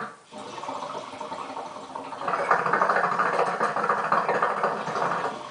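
Water bubbling in the bases of a Kaya PNX 660 V2 and an SKS 650 hookah as both are drawn on, during the first pulls of a session. The bubbling breaks off briefly at the start, then grows louder about two seconds in.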